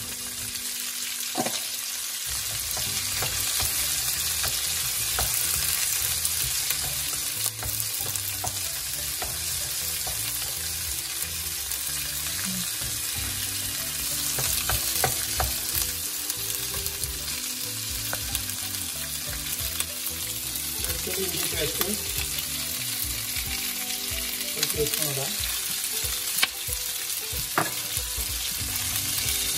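Chopped onions, bell peppers and cashews sizzling in hot oil in a wok, stirred with a wooden spatula, with scattered clicks and scrapes of the spatula against the pan. The onions are tipped in at the start.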